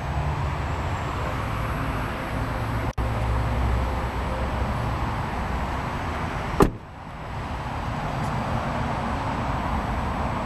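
A car's rear door shutting with one sharp thump about two-thirds of the way through, over a steady outdoor rumble.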